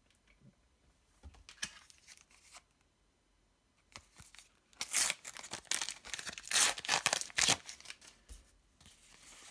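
A paper sticker booster packet being torn open by hand, with crinkling and rustling of the wrapper; the loudest tearing comes in a dense run from about five to seven and a half seconds in, with lighter rustling before and after.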